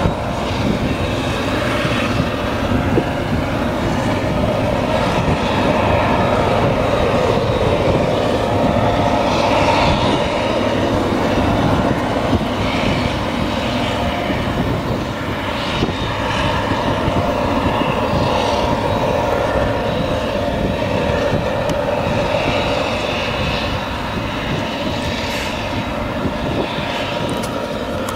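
Claas Jaguar 970 self-propelled forage harvester chopping whole-crop triticale under full load: its V12 diesel drones steadily with a held whining tone on top. A tractor hauling the trailer alongside blends into the noise.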